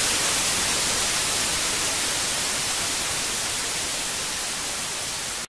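Steady static hiss, like white noise, fading slightly, then cutting off suddenly at the very end.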